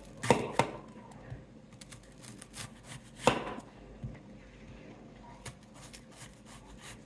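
Kitchen knife slicing a red onion, the blade knocking sharply on the cutting board: twice in quick succession near the start and once more about three seconds in, with lighter clicks in between.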